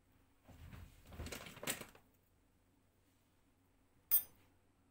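Kitchen tableware and utensils being handled while a work surface is cleared: scraping and rustling for about a second and a half, then a single sharp, ringing clink a little after four seconds in.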